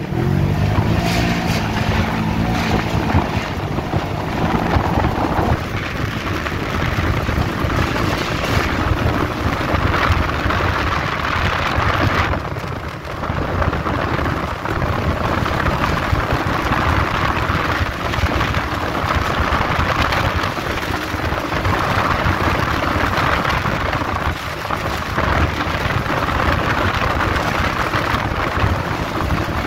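Polaris RZR side-by-side driving along a dirt track: the engine running steadily under way, mixed with heavy wind noise on the microphone.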